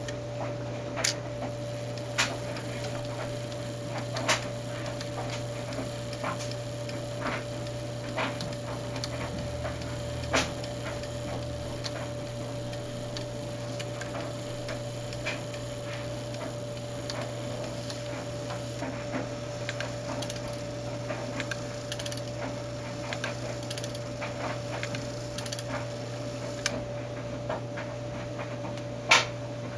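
Grandfather clock movement ticking: sharp clicks about once a second, some louder than others, over a steady hum, with one louder click near the end. No chime is struck.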